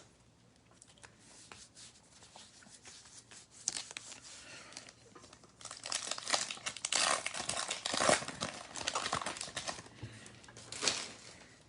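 Foil wrapper of a trading card pack being torn open and crinkled. The crinkling is faint at first and grows denser and louder about halfway through, with a last short crinkle near the end.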